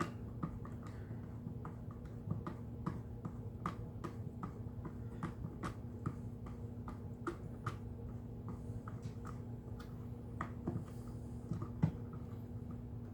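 Light irregular clicks and taps of hand tools and plastic parts as the dirt-finder sensor housing is worked loose from a Hoover WindTunnel vacuum's plastic body, about two or three a second with a sharper knock near the end, over a steady low hum.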